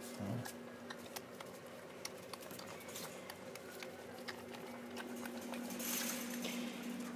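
Standard poodle puppies' paws and claws pattering and clicking on a tiled floor, many light irregular clicks, over a steady low hum. A brief rustling hiss comes about six seconds in.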